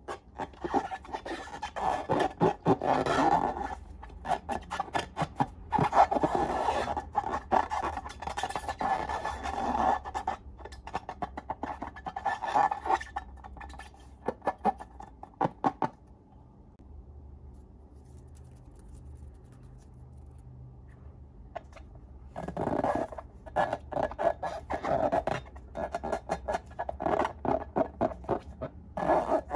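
Slime being squeezed and stretched by hand, giving rapid crackling, popping clicks in two long spells with a quieter gap of several seconds in the middle.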